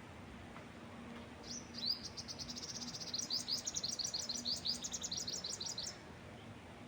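A songbird sings one phrase of about four and a half seconds: a couple of slurred high notes, then a rapid run of short, high chirps. Behind it runs a steady, soft hush of wind.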